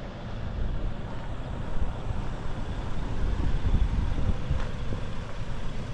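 A 4x4 driving on a bumpy dirt road: a steady low rumble of engine and tyres that swells and dips.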